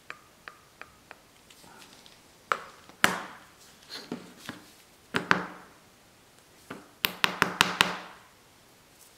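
Parts of a disassembled folding knife, the steel blade and a handle scale, being handled and set down on a cutting mat: a few faint ticks, then sharp clicks and knocks, with a quick run of about seven clicks near the end.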